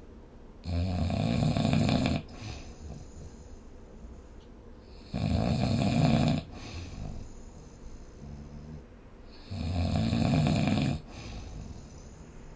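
A person snoring in sleep: three loud snores about four and a half seconds apart, each lasting about a second and a half, with quieter breathing between them.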